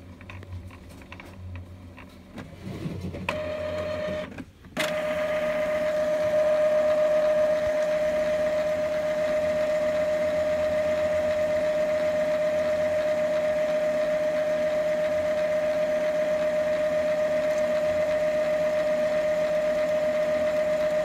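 Epson L3150 inkjet printer running its power cleaning cycle: after a few light clicks, its motor starts about three seconds in with a steady, single-pitched whine, drops out briefly a second later, then runs on evenly.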